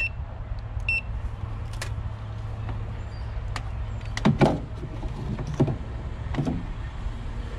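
A digital clamp meter beeps briefly twice near the start as its dial is set to DC voltage, then a few knocks and rattles of the meter and its leads being handled, the loudest about four and a half seconds in. A steady low rumble runs underneath.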